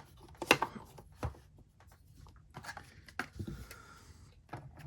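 Scattered clicks and knocks from a plastic puzzle box prop being handled. A sharp click comes about half a second in, with a cluster of smaller clicks around three seconds.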